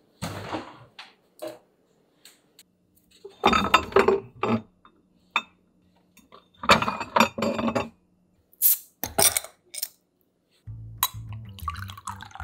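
Refrigerator being opened and glass beer bottles clinking and knocking together as they are taken out, in several separate bursts. Near the end, bottled beer is poured into a glass, with a rising pouring sound over background music.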